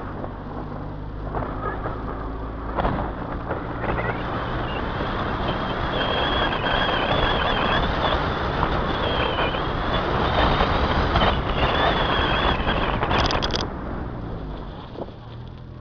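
Car on the move: the engine's low hum at first, then road and wind noise building up with a high wavering whistle on top, which drops away suddenly near the end.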